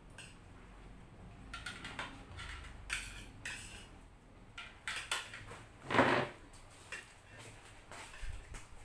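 Spoons and forks clinking and scraping on bowls and plates during a meal, in scattered light clicks, with one louder, rougher noise about six seconds in.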